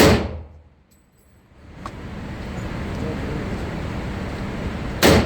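Two rifle shots about five seconds apart, each sharp and loud with a short echo off the range walls, and a steady low rumble between them.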